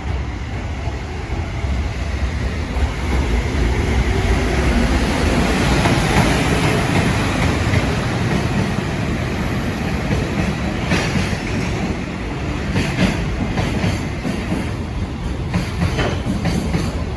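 Freight train hauled by an electric locomotive rolling along the track, a continuous rumble of wagons. From about two-thirds of the way in, sharp clicks of wheels over rail joints come through.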